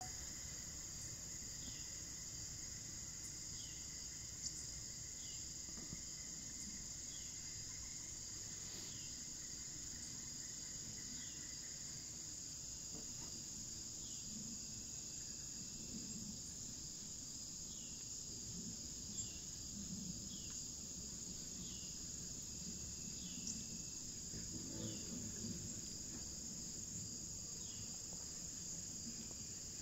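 Insect chorus, a steady high-pitched trill, with short falling chirps repeating about once a second.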